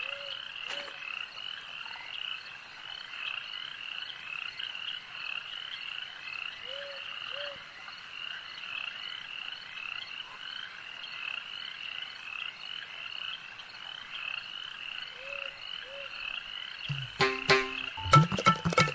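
Night chorus of frogs croaking, a steady rapidly pulsing chorus with a short two-note call heard three times. Near the end, louder music with sharp hits cuts in.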